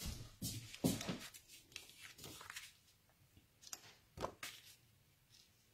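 Faint handling of cardstock: a run of short sliding, scraping swishes in the first couple of seconds, then two light taps as a card layer is set down on the card base.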